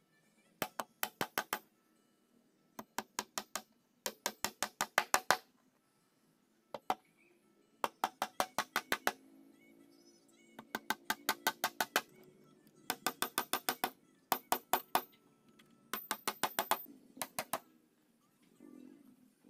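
Claw hammer driving nails into a wooden cabinet frame: quick bursts of about five to ten sharp blows, roughly six a second, with short pauses between bursts.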